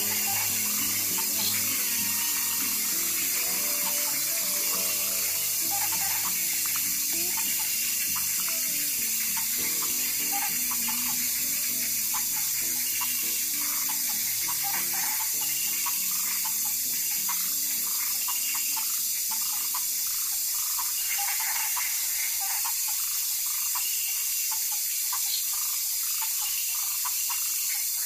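Steady hiss, with soft background music underneath that fades out in the second half.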